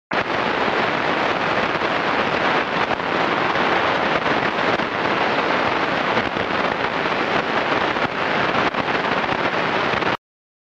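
Loud, even static hiss like a television that has lost its signal, cutting off suddenly near the end.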